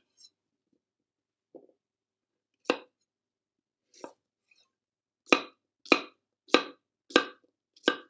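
Kitchen knife chopping peeled courgettes on a cutting board: a single chop about two and a half seconds in, then a run of five evenly spaced chops, roughly one every two-thirds of a second, in the second half.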